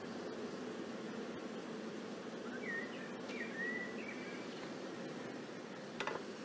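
Steady low hum of honeybees from an open hive during a brood-frame inspection. A short chirping bird call comes a little before halfway, and a light click near the end.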